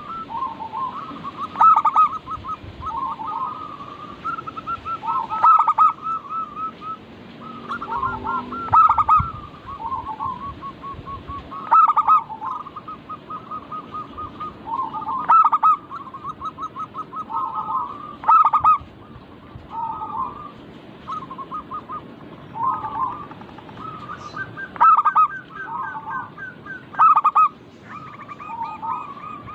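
Zebra doves (perkutut) singing: repeated rapid, trilled cooing phrases with a louder accented note every few seconds, the phrases overlapping.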